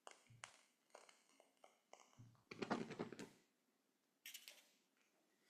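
Faint clicks and small handling sounds as candles are lit, with a brief scraping rustle a little past halfway and a few more clicks near the end.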